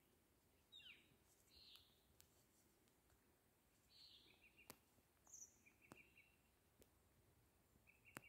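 Near silence with faint songbird calls: a few short chirps and three brief, fast trills of repeated notes, with a few small clicks.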